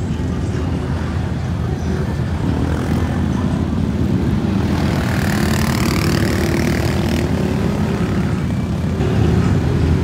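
Suzuki KingQuad 750 ATV's single-cylinder engine revving hard under load as the quad churns through deep mud, with a rushing splash of mud and water about halfway through.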